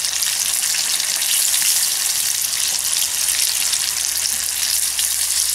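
Pieces of steelhead trout deep-frying in hot oil in a skillet: a steady sizzle.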